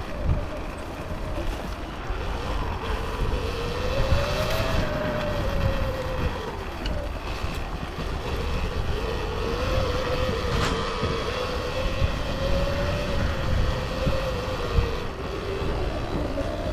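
Motorbike engine running while riding off-road, its pitch rising and falling with the throttle, over a low rumble of wind and rough ground with a few sharp knocks.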